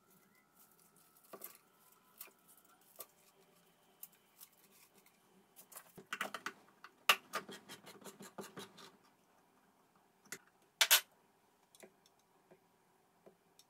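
Scissors snipping pandan leaves, a few cuts in the first seconds, then a hand-cranked can opener working round a can with a rapid run of clicks for about three seconds. A couple of sharp clacks follow about two-thirds of the way through.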